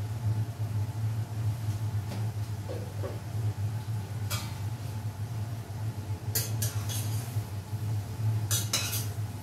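A spoon clinking against a stainless steel cooking pot while food is stirred: one sharp clink about four seconds in, then small clusters of clinks around six to seven seconds and near the end, over a steady low hum.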